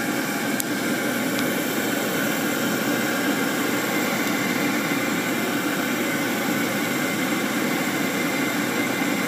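Waste oil furnace burner running steadily wide open, a constant mechanical noise of blower and flame. Its snap disc is bypassed, so it runs without cycling off.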